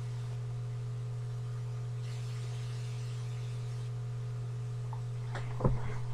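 Steady low electrical hum, with a few brief soft knocks near the end.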